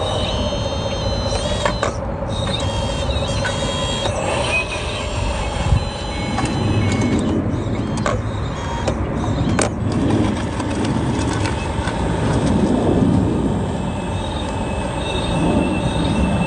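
Electric motors and gearboxes of a Huina 1593 RC excavator whining, the pitch stepping up and down in the first few seconds as it works, with a few sharp clicks over a steady rushing noise.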